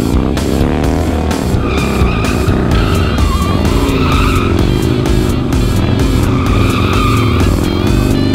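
Motorcycle engine revving with tyres squealing as the bike drifts, under music with a steady beat. The squeal comes in about two seconds in and wavers on.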